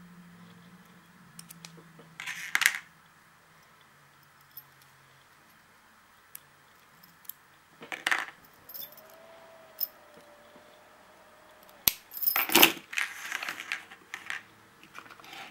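Small brass padlock and homemade metal picks (a pen clip and a bent hair barrette) clinking and being set down on a hard table: a few short metallic clatters, the loudest run of them near the end.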